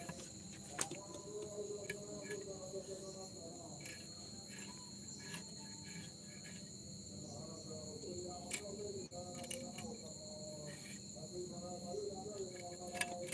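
Crickets trilling in two steady high tones, with scattered sharp clicks and scrapes as small fish are scaled and cut on a bonti blade.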